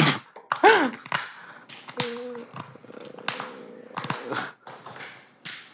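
A run of sharp clicks and clacks, the loudest right at the start, as shattered frozen plastic toy diamonds are handled and gloved hands clap.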